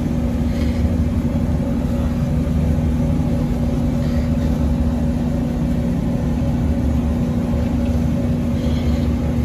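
Steady mechanical drone of running machinery, a constant low hum with a fixed pitch, and a few faint scuffs now and then.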